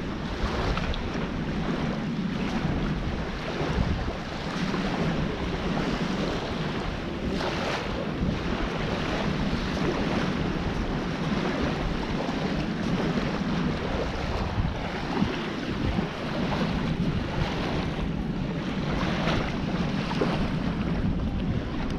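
Steady wind buffeting a handheld camera's microphone, mixed with the wash of small waves on a sandy shore.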